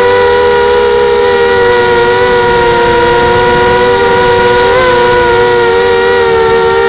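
Pitbull 250 FPV racing quadcopter's brushless motors and propellers whining at a steady, high pitch. The pitch wavers slightly with throttle, with a small wobble about five seconds in.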